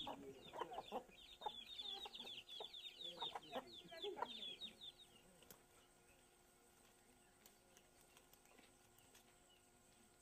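Chickens: hens clucking and chicks peeping in quick, high, falling calls for about the first five seconds, then near silence.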